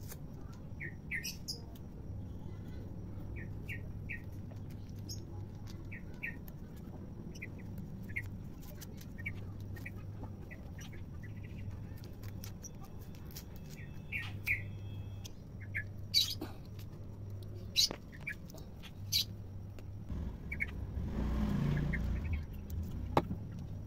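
Small birds chirping in short calls every second or two over a steady low hum, with scattered sharp clicks. A low rumble swells and fades near the end.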